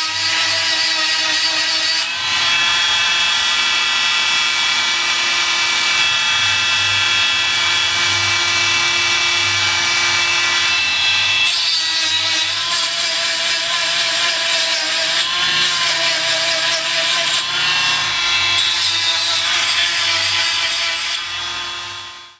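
Granberg's 12-volt bar-mounted precision chain grinder running at high speed, its grinding stone sharpening chainsaw teeth. It makes a steady whine with grinding noise that shifts in character a few times as it works, and fades out near the end.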